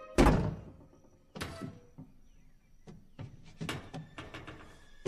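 A heavy door thud about a quarter of a second in, followed by further bumps and knocks, two louder ones about a second and a half and nearly four seconds in.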